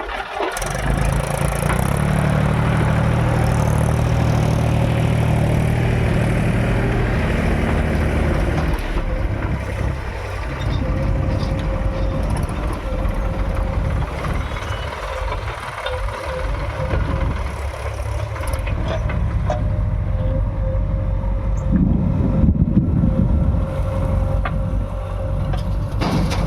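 JCB 3DX backhoe loader's diesel engine working under load, with a heavy drone for the first eight seconds or so, then easing, and a steady thin whine over it throughout. It picks up again briefly about 22 seconds in.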